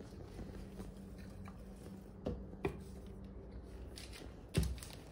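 A few soft knocks and thumps of handling, the loudest near the end, over quiet room tone with a faint steady hum in the first half.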